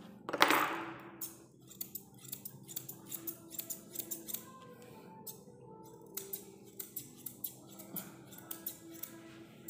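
Grooming scissors snipping through a Maltese puppy's leg fur, a quick run of short, sharp metal snips, with one louder knock about half a second in.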